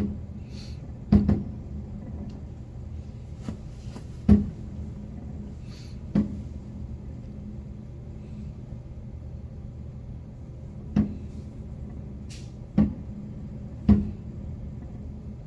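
Fireworks shells bursting some way off: a run of separate booms, about seven in fifteen seconds at uneven gaps, over a steady low hum.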